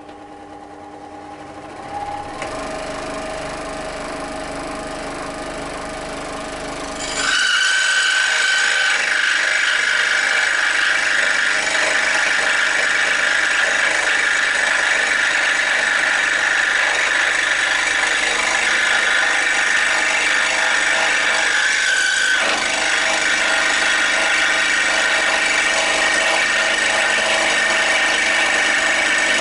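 Record Power SS16V variable-speed scroll saw starting and running unloaded, then about seven seconds in its reciprocating blade bites into a board of sapele hardwood and the sound becomes much louder, a steady sawing that eases briefly about 22 seconds in.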